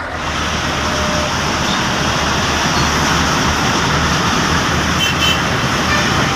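Tractor-trailer (semi truck) engine running steadily with a low rumble under a loud road-noise hiss. It cuts off suddenly at the end.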